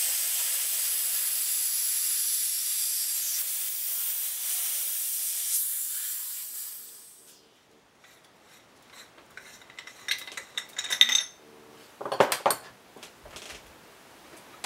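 Stainless steel cream whipper venting its nitrous oxide charge: a loud hiss that starts suddenly and fades out over about seven seconds as the pressure runs down. Later come light metal clicks and clatters as the whipper's head is worked loose.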